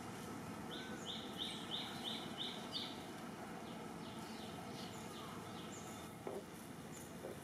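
A bird calling in the background: a quick run of about seven evenly spaced high notes, roughly three a second, starting about a second in, with a few fainter chirps later, over steady outdoor background noise.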